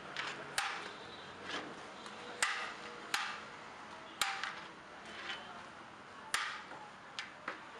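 A steel plate clinking against a large metal biryani pot as rice is scooped out: about eight sharp knocks, spaced roughly a second apart.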